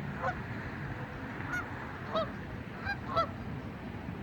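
Geese honking: a handful of short, separate honks, the loudest about three seconds in.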